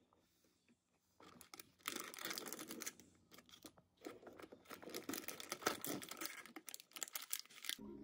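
Paper and cardboard crinkling, rustling and tearing as a cardboard advent calendar compartment is opened by hand and its contents pulled out. It starts about a second in, as a run of irregular crackles.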